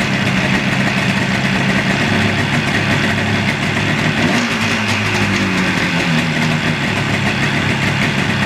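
Yamaha RD400's two-stroke parallel-twin engine idling steadily just after starting on freshly fitted ignition coils, running on both cylinders: a sign the new coil connections are good. Its pitch wavers briefly around the middle.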